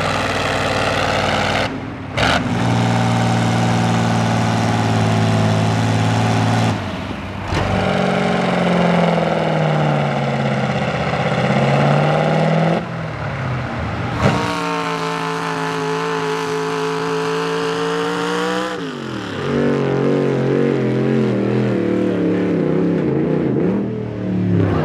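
Big diesel pulling-tractor engines under heavy load dragging a weight-transfer sled, in several runs cut together. They include an International 1468's V8 and a Massey Ferguson 1155's Perkins V8. The engine pitch sags and climbs as the load builds, and the sound changes abruptly at each cut, ending on a Dodge Ram dually pickup pulling.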